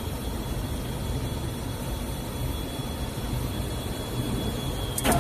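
Steady low hum and hiss of an automatic jumper-wire insertion machine running, with a faint high whine. A sharp click about five seconds in.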